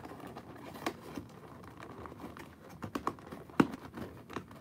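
Fingers handling a cardboard toy box while working a toy truck loose inside it: a string of irregular small clicks, taps and rustles, the sharpest about three and a half seconds in.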